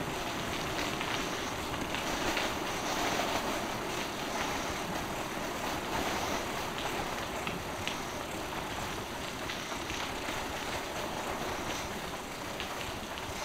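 Bicycle rolling along a packed greenway path through a tunnel: steady tyre and riding noise with a few small clicks and rattles from the bike.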